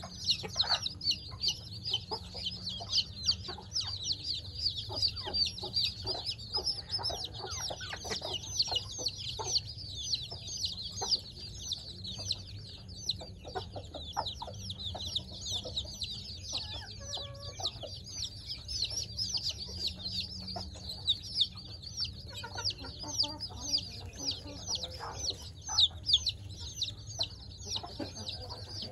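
A brood of week-old chicks peeping nonstop, many short, high, falling cheeps overlapping in a constant chorus.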